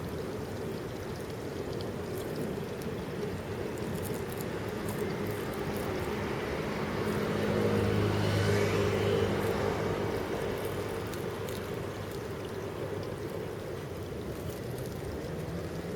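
Water trickling steadily in a small pond stream, with an engine hum that swells and fades as a vehicle passes about halfway through.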